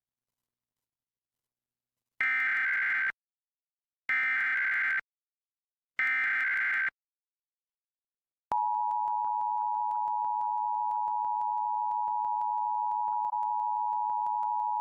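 Emergency Alert System required monthly test: three bursts of SAME digital header data, each about a second long and a couple of seconds apart, sounding as a harsh warbling screech. About eight and a half seconds in, the steady two-tone EAS attention signal (853 and 960 Hz) starts and holds.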